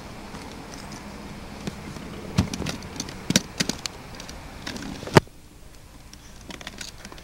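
Handling noise from a handheld camcorder carried on foot over rocky ground: scattered knocks and scuffs over a steady hiss. The loudest is a sharp knock about five seconds in, after which the background drops lower.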